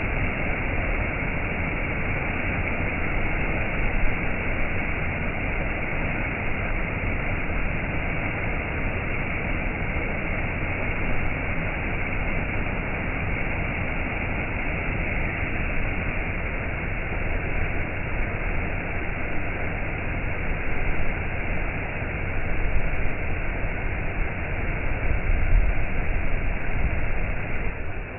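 Flowing stream water running steadily, a continuous even rush with no break.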